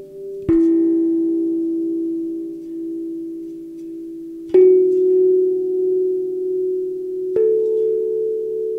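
Steel tongue drum: three single notes struck a few seconds apart, each a little higher than the one before, each left to ring out long with a slow pulsing wobble in the tone.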